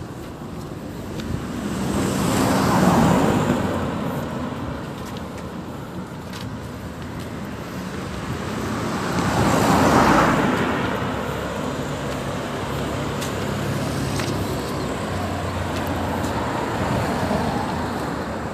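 Cars passing on the road close by: one swells and fades about three seconds in, a second, louder one about ten seconds in, then a steadier engine hum carries on.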